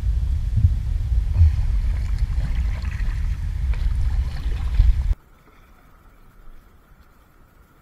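Low rumbling wind and water noise with a few thumps, picked up by a camera mounted on an inflatable kayak moving on the water. It cuts off suddenly about five seconds in.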